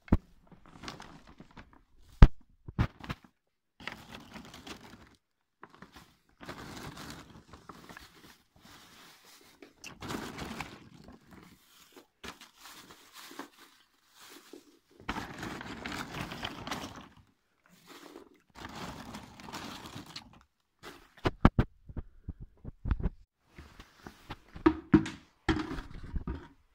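Paper and plastic bags rustling and crinkling in stops and starts as dried bread slices are handled, with sharp knocks now and then, several of them near the end.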